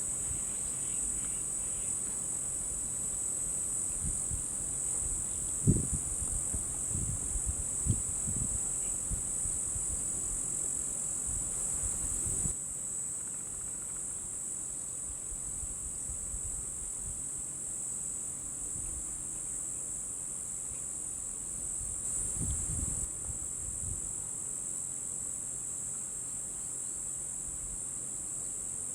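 Steady, high-pitched shrilling of insects in a continuous chorus, with a few soft low bumps about a third of the way in and again later.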